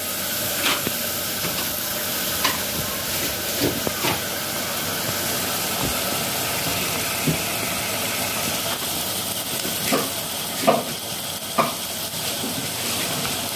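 Onion-and-spice masala sizzling steadily in hot oil in an aluminium pressure cooker on a gas stove. A few short sharp knocks from the wooden spoon stirring against the pot are scattered through it.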